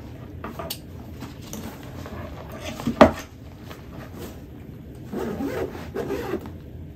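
Padded nylon camera backpack being handled and laid down on a wooden table: fabric rubbing and rustling, with one sharp knock about three seconds in.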